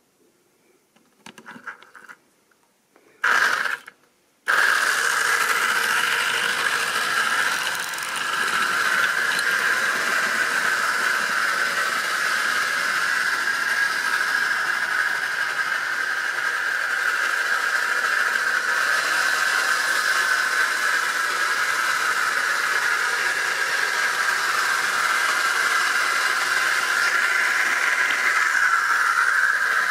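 Model railway locomotive running on the track: a steady electric motor whine with wheel and rail noise, switching on suddenly about four seconds in after a few light clicks and knocks.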